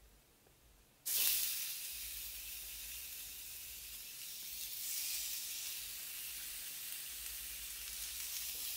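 Beef and mushroom burger patties sizzling on a hot, oiled stovetop grill pan as they are laid down. The sizzle starts suddenly about a second in and swells again around five seconds in as another patty goes on.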